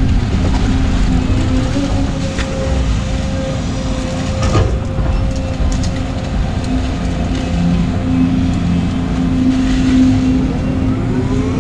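Volvo 220 excavator's diesel engine running steadily under load with a whine from the hydraulics, heard from inside the cab while the boom and bucket dig and swing a load of wet mud. A single knock comes about four and a half seconds in.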